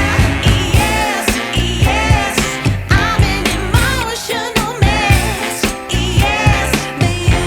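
Background pop-soul song: a sung melody over a steady drum beat.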